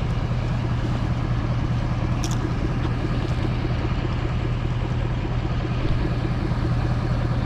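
Pressure washer's engine running steadily with an even low hum. There is a brief high chirp about two seconds in.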